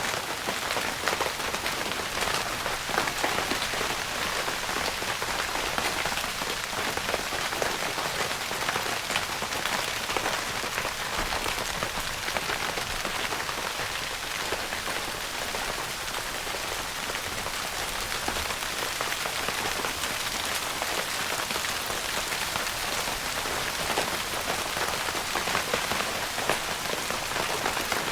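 Steady rain pattering on a tent's fabric roof: a dense, even patter of many fine drop hits, with no lulls.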